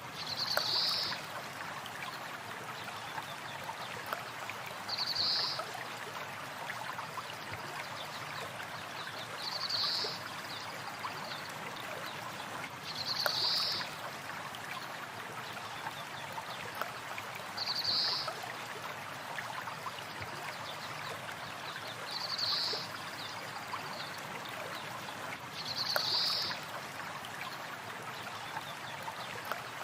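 Steady rush of a flowing stream, with a short high bird call repeated at an even pace, about every four seconds.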